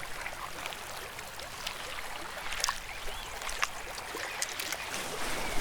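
Gentle water ambience: trickling and lapping with scattered small splashes.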